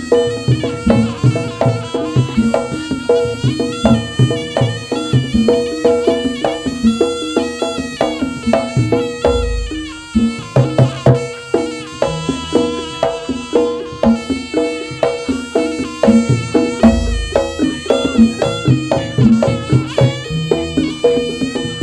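Jaranan music: drums and gamelan percussion keeping a fast, steady beat under a wavering, reedy melody. Deep low booms sound twice, about 9 and 17 seconds in.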